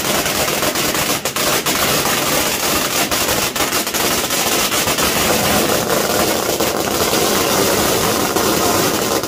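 Strings of firecrackers going off in a dense, continuous rapid crackle of bangs, which cuts off suddenly at the very end.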